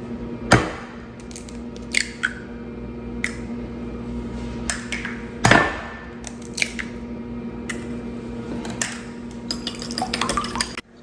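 Eggs cracked against a ceramic bowl: sharp separate knocks and clicks of shell on the rim, the loudest about five and a half seconds in. Near the end a wire whisk starts beating the eggs, a quick run of light clicks against the bowl.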